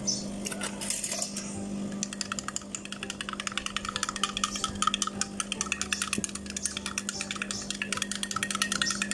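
A long spoon stirring fast in a small glass, clinking rapidly against its sides from about two seconds in. A steady low hum runs underneath.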